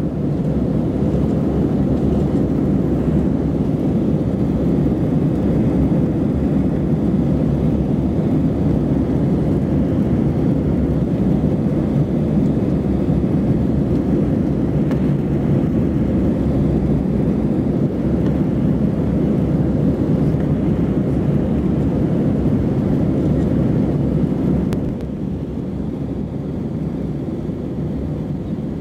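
Steady cabin noise of an Airbus A319 in the climb after takeoff: engine and airflow drone heard from a window seat over the wing. The noise drops a little in level near the end.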